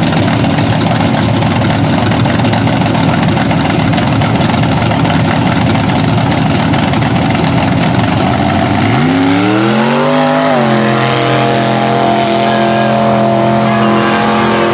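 Chevy S-10 mud truck on tractor tires: its engine runs loudly at the line, then about nine seconds in revs up sharply, rising in pitch, and holds high revs as the truck launches down the mud track.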